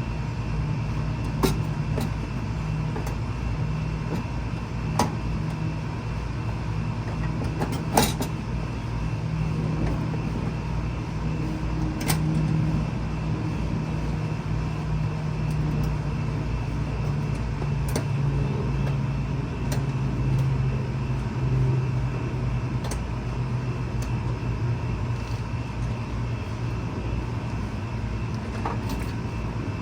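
A steady low motor hum whose pitch drifts slowly, with a few short sharp knocks scattered through it.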